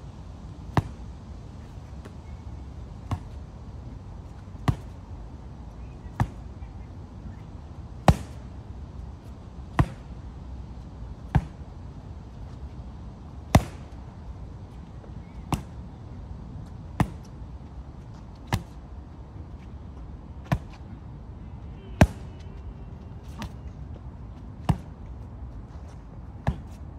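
Boxing gloves smacking against handheld focus mitts in single sharp hits, about one every second and a half, over a steady low outdoor rumble.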